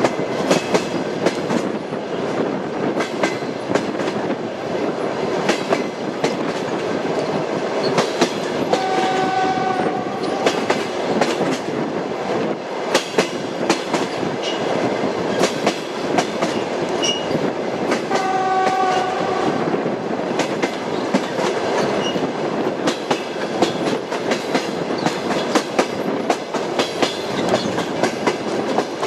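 Train wheels clattering over rail joints in a continuous run of clicks. A train horn sounds twice, about nine and about eighteen seconds in, each blast lasting a second or so.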